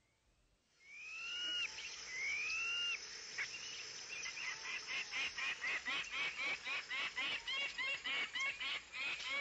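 Jungle wildlife ambience beginning about a second in: two long arching whistled calls, then a fast, steady run of short chirping notes, about three a second, over a high hiss.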